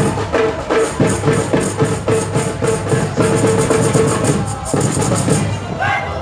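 Batucada percussion group playing a fast, driving samba rhythm on large bass drums, a snare drum and a small metal percussion instrument, with a steady low boom under rapid crisp strokes.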